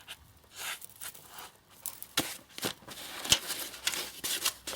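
Plastic packaging rustling and crinkling as parts are handled and unwrapped, with scattered light clicks and short rustles.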